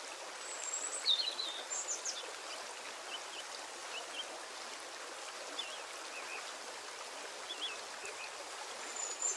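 Steady background hiss with scattered short, high-pitched chirps, the loudest about a second in and again near the end.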